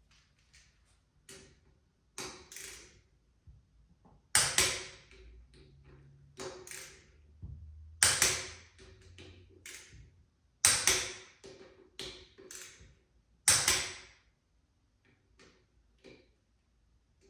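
Click-type torque wrench breaking over as brake rotor bolts on a motorcycle wheel are torqued to 30 ft-lb in a star pattern. There are four loud, sharp clicks about three seconds apart, each ringing briefly off the metal, with quieter tool clicks in between.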